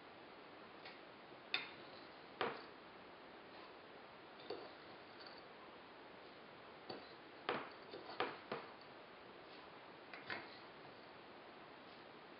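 A handful of light, separate clicks and taps from a glass jar of loose oolong tea being handled and leaves being put into a stainless steel mesh tea infuser.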